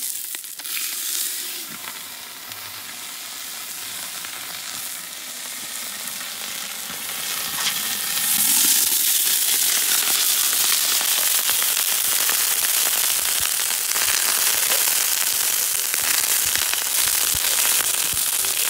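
Whole yellow chile peppers sizzling and steaming on a hot Mojoe flat-top griddle, a steady crackling hiss that grows louder about eight seconds in and then holds.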